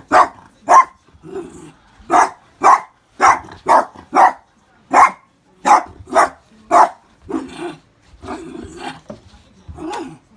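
Miniature dachshund barking at an unfamiliar object: a run of sharp barks in quick succession, then lower, longer grumbling sounds from about seven seconds in.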